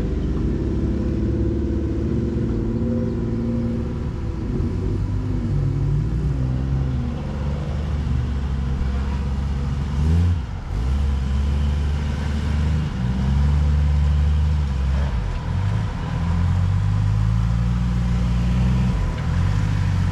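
Side-by-side UTV engine running and revving unevenly, its pitch rising and falling in short pushes as it crawls over the quarry rock.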